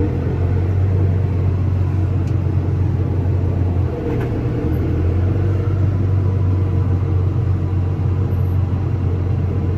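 Tractor engine running at a steady speed, a constant low drone.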